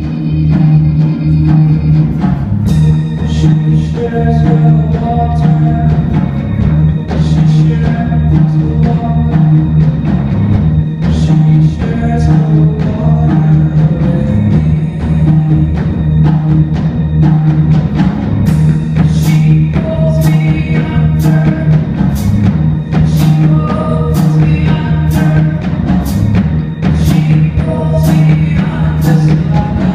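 Live rock band playing: drum kit, bass guitar, electric guitar and synth keyboard over a sustained low drone, with the drums coming in about two seconds in.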